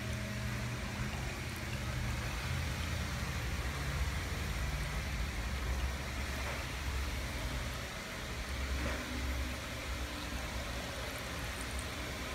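Turtle-tank filter running, its outflow stirring and splashing the water surface, over a steady low rumble.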